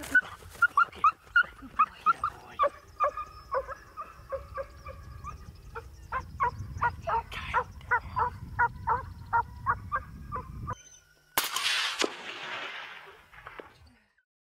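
Series of short, high canine yelps and whimpers, about two a second, with a coyote-like yipping quality, cutting off abruptly. A sudden loud rushing burst follows near the end and fades over about two seconds.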